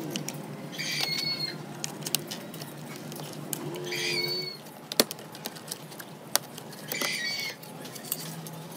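A memory stick being pressed into a motherboard's memory slot: small plastic clicks, then a sharp snap about five seconds in as a slot's retention clip locks. A bird calls three times in the background, about three seconds apart.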